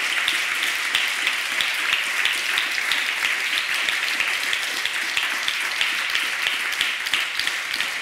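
Audience applauding steadily, many hands clapping at once.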